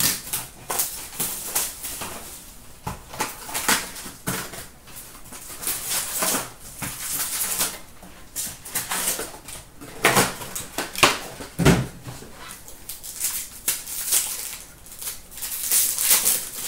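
Hockey card packs torn open and the cards handled: irregular crinkling and rustling of wrappers and card stock, with a soft thump about twelve seconds in.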